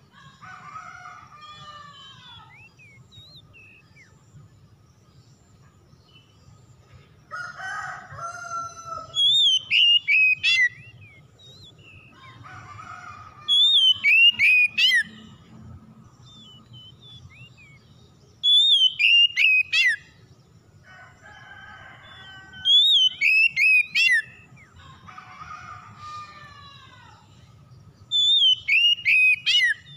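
Oriental magpie-robin (kacer) singing: five loud, fast whistled phrases of falling notes and quick flourishes, repeated about every five seconds, with softer warbled phrases in between.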